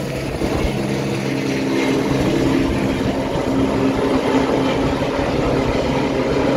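Airbus H125 single-engine helicopter climbing away overhead just after take-off: a steady rotor and turbine sound with a low, even hum and no break.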